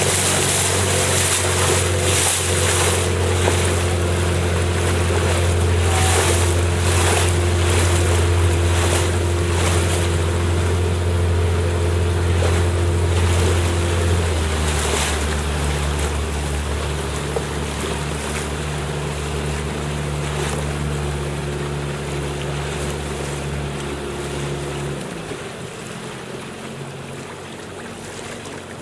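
Boat motor running steadily, with wind gusting on the microphone. About halfway through, the engine note drops lower. Near the end the engine sound stops, leaving wind and water noise.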